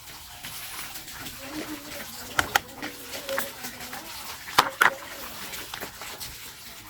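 Sharp clicks and taps of a plastic toy vehicle being handled and screwed together, with screws being set into its screw holes: two pairs of clicks about two seconds apart, and smaller ticks between them.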